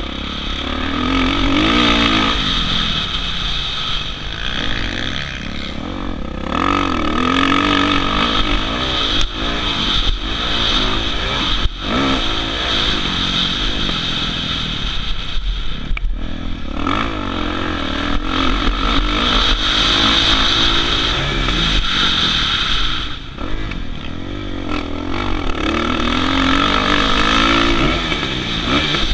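Kawasaki KX450F four-stroke single-cylinder motocross engine being ridden hard, revving up and backing off over and over as the rider shifts through the gears and brakes into corners, with a few short knocks from the bike over the track.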